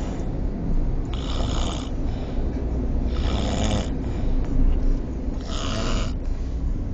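A person snoring heavily: three snores about two seconds apart, each a little under a second long, over a steady low rumble.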